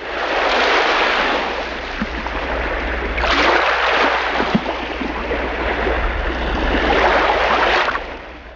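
Sea waves washing in, a rushing noise that swells three times over a low rumble and fades out near the end.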